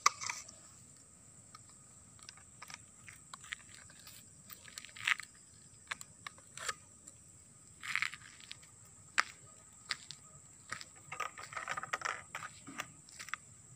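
Dog biting and chewing a plastic bottle, the plastic crackling and crinkling in irregular bursts, with a steady high insect drone behind.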